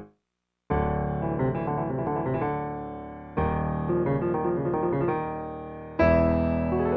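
Piano accompaniment to a silent film. After a brief pause, sustained chords with a busy repeated figure in the middle come in, a new phrase begins about three seconds in, and near the end a loud chord starts a rising run.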